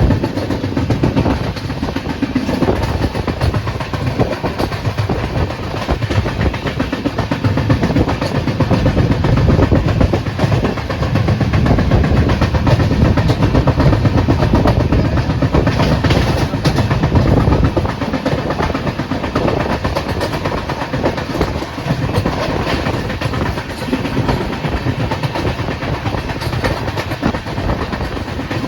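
Steady rumbling noise of a moving vehicle, growing louder midway and easing off again.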